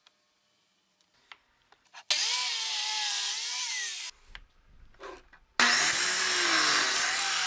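Circular saw cutting through wood twice, each cut lasting about two seconds, with the motor's whine wavering in pitch under load. A few faint knocks come between the cuts.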